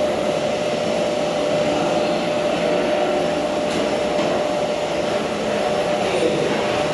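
Vacuum cleaner running steadily, a constant whine over its airflow noise, the pitch dropping slightly near the end.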